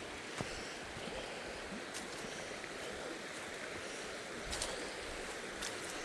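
Steady rush of flowing stream water, with a few faint clicks and knocks scattered through it.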